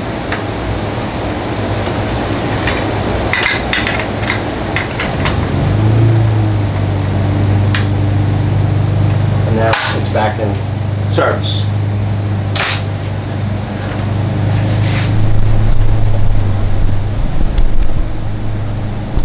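Scattered metal clicks and knocks of a wrench, screws and the blade guard as a DeWalt DCS361 cordless sliding miter saw is put back together after a blade change. A steady low hum comes in about six seconds in and dies away near the end.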